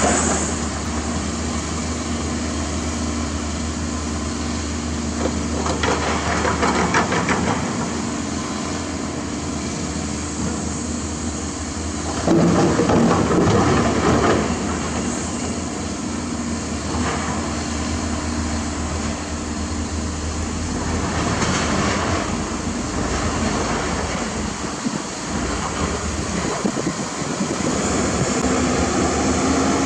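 Diesel engines of an excavator and a dump truck running steadily, with several louder, noisier surges of a few seconds each, the loudest about twelve seconds in.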